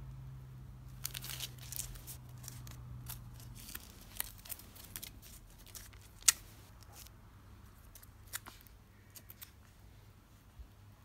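A deck of plastic-sleeved Yu-Gi-Oh trading cards being handled: sleeves sliding and rustling against each other in scattered clicks as the cards are fanned, then the deck squared up and tapped down, with one sharp click about six seconds in.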